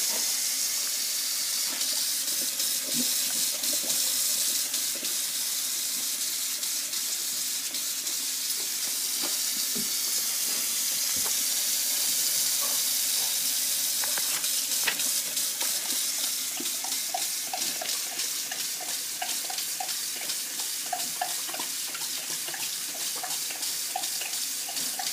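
A faucet running steadily into a sink while a golden retriever puppy drinks from the stream. In the second half come quick repeated laps that break the sound of the water.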